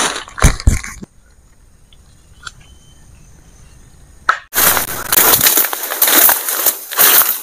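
Dry forest leaf litter and twigs crunching and snapping as brush is trampled and cleared. There is a burst in the first second, a quieter stretch of about three seconds, then dense crunching again from about four and a half seconds in.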